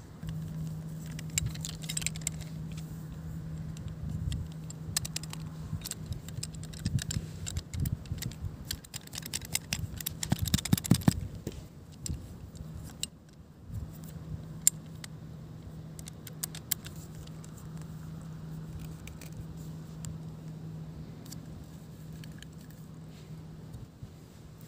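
Small metal and plastic clicks and rattles as the threaded handle sections and axe head of a folding survival shovel multi-tool are handled and fitted together, with a flurry of sharp clicks about ten seconds in. A steady low hum runs underneath.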